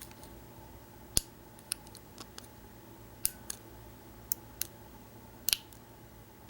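Lock pick and tension wrench working the pin stack of an American 1107 padlock. Scattered sharp metallic clicks come at an uneven pace, about nine in all, as the pick lifts the pins and their serrations catch at the shear line.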